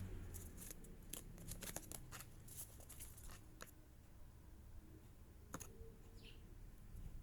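Faint, scattered clicks and light taps of hands handling blind-box packaging and its contents, sparser after about four seconds, with a brief faint squeak near the end.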